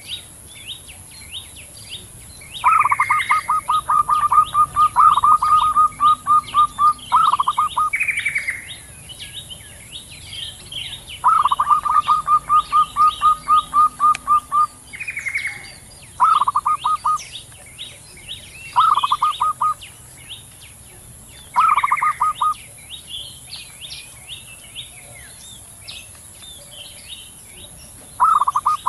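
Zebra doves (perkutut) calling back and forth. Each call opens with a short falling note and runs into a rapid string of staccato coos. Some bouts last several seconds, others about a second. Other small birds chirp throughout, with a steady high hiss behind.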